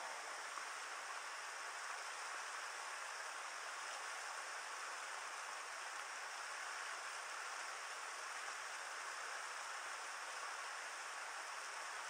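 Steady rushing of river rapids over boulders: an even hiss of fast water that holds at one level.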